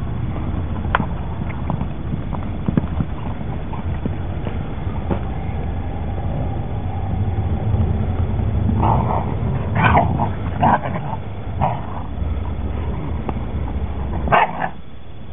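Young German Shepherd puppies yipping while they wrestle over a toy, with a cluster of short yips about nine to twelve seconds in and one more near the end. A steady low rumble runs underneath.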